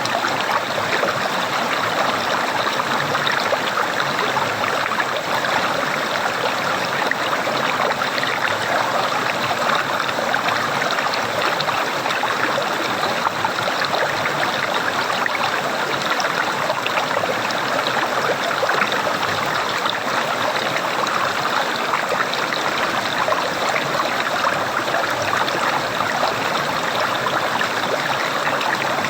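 Flowing water gurgling steadily, a constant even splashing with no pauses.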